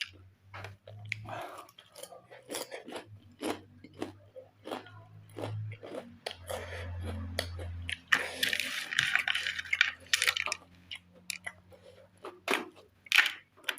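Close-up chewing of crispy fried chips and crunchy snacks: a run of sharp crunches, with a denser stretch of crunching about eight seconds in.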